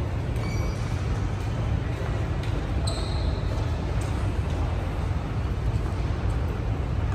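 Steady low rumble of an underground railway station concourse, with a few faint short electronic beeps, the clearest about three seconds in.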